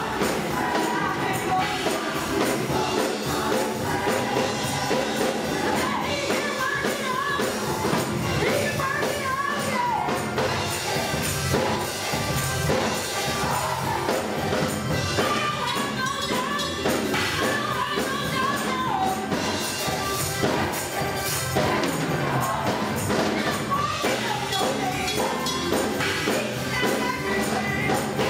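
Gospel choir singing with music accompaniment, a tambourine shaking along throughout.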